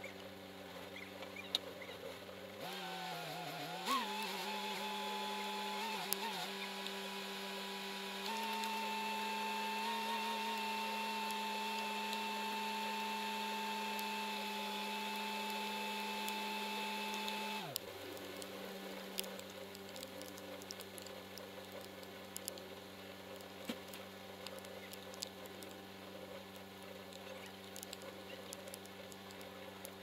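A heavy machine's engine running at idle, revved up about three seconds in, raised higher again around eight seconds, and held steady before dropping back to idle around eighteen seconds.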